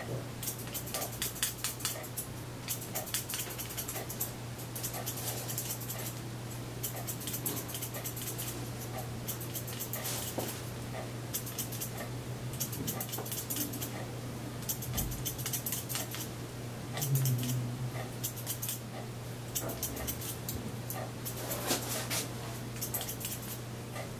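Scissors snipping through wet hair in short runs of quick clicks over a steady low hum, with a dog whimpering now and then.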